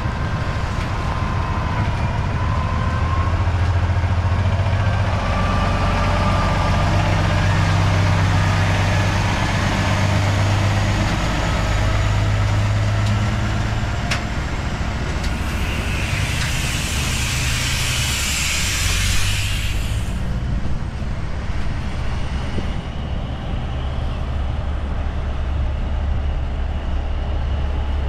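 Heavy diesel truck engine running under load, a faint whine rising in pitch over the first several seconds as it gathers speed. A loud hiss lasts about five seconds midway through.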